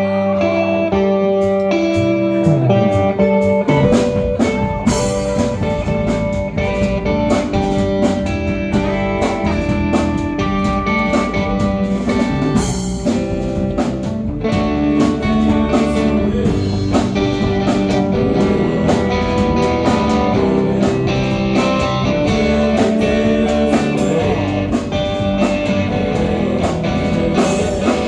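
Live rock band playing through the PA during a sound check: electric guitar over bass, with the drum kit joining a few seconds in and the band carrying on at a steady loud level.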